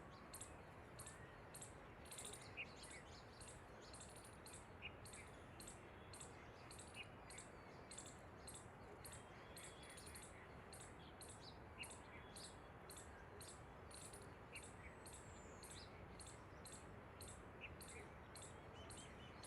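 Faint outdoor birdsong: short high chirps scattered here and there, over a steady high-pitched ticking call that repeats about twice a second.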